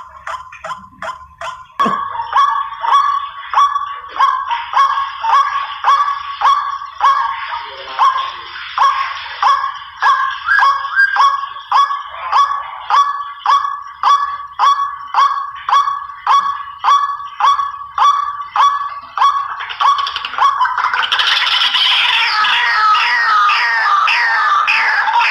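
White-breasted waterhen (ruak-ruak) calls played as a hunting lure: a harsh call repeated about twice a second, which about twenty seconds in turns into a denser, near-continuous chattering.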